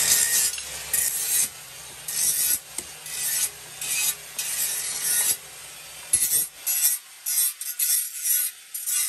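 Hand hammer forging a red-hot steel nut on an anvil: a steady run of blows, each a short harsh burst of noise, about one a second. In the last couple of seconds the blows come quicker and sharper.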